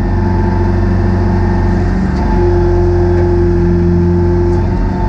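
Hopto H-1900 hydraulic excavator's diesel engine running steadily under a constant low throb, with a steady higher tone held over it.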